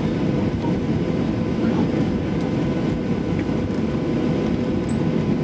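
Cabin noise of a Boeing 737-800 taxiing after landing: a steady low rumble from the CFM56-7B engines at idle and the rolling airframe, with a faint steady hum over it.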